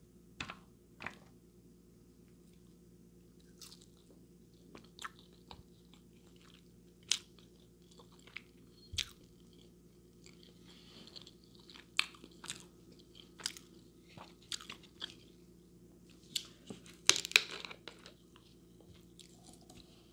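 Close-miked chewing of boneless chicken wings: irregular wet crunches and mouth clicks, with the loudest cluster about seventeen seconds in.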